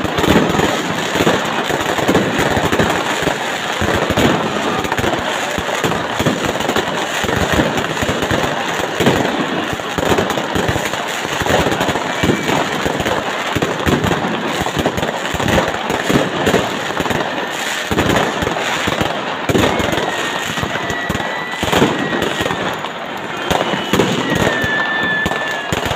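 Fireworks and firecrackers going off close by in a dense, unbroken run of bangs and crackles. Crowd voices sit underneath, and a few short whistles come in near the end.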